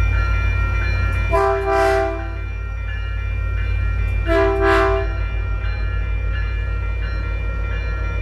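Caltrain diesel locomotive sounding its horn twice while passing through a grade crossing: a long blast a little over a second in and a shorter one about four seconds in. Under both runs the steady low rumble of the passing train.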